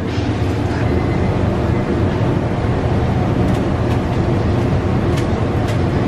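Steady loud rumble of a commercial ramen kitchen, with gas burners lit under pots of broth and boiling noodle water. A few sharp metal clinks of ladles and strainers come in the second half.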